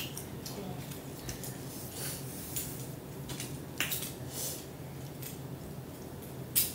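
Metal serving tongs clinking against a glass serving dish of seafood boil: a handful of short, sharp clinks, the loudest near the end, over a low steady hum.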